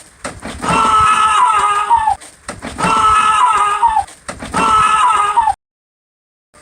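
A high pitched cry, like a scream, repeats identically about every two seconds as a loop, with knocks between the repeats. The sound cuts to dead silence for about a second near the end.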